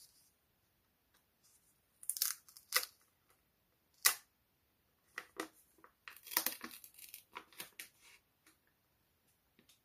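Thin paper wrapper on a new smartphone rustling and crinkling as hands peel it off. It comes in bursts: a few about two to three seconds in, one short sharp crackle about four seconds in, and a longer run of crinkling from about six to eight seconds.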